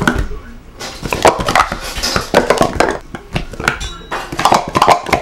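Plastic sport-stacking cups clacking rapidly against each other and the stacking mat as they are stacked up and down, in quick runs of clicks with a pause of about a second past the middle.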